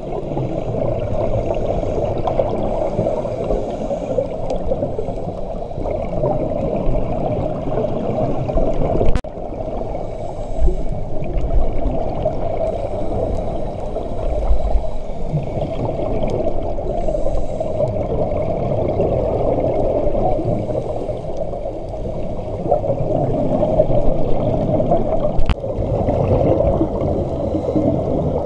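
Muffled underwater noise recorded through an action camera's waterproof housing, with the gurgle of divers' regulator bubbles. A sharp click about nine seconds in and another near the end.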